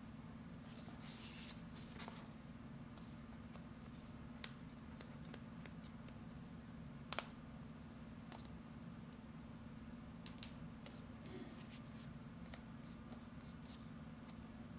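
Paper pull-tab seal strips on a cardboard iPhone box being peeled off, with scattered crisp ticks and short rustles of the box being handled; the two sharpest ticks come about four and a half and seven seconds in. A steady low hum runs underneath.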